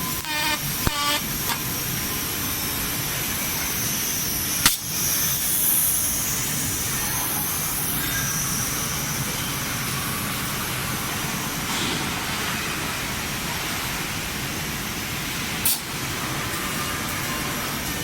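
Robotic welding arc on a bicycle frame, giving a steady hiss. A few short repeated tones sound in the first second, and there is a sharp click about five seconds in and another near the end.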